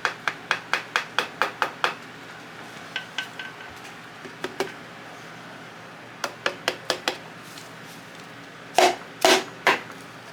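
Quick light taps, about four a second in several short runs, with three heavier knocks near the end: a piston being hammered down into the cylinder bore of a Honda B18B block.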